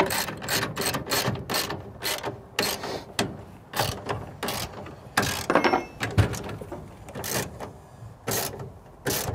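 Socket ratchet wrench clicking on its back-swings as a bolt is tightened, about three strokes a second at first, slowing to single spaced strokes in the second half.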